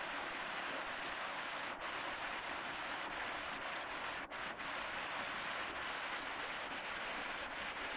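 Waterfall: thin streams of water falling from a rock ledge and splashing below, a steady even hiss.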